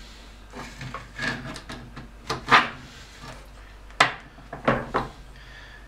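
A dishwasher's wire plate rack being handled, with scrapes, rattles and knocks; the loudest comes about two and a half seconds in, and a sharp knock at about four seconds.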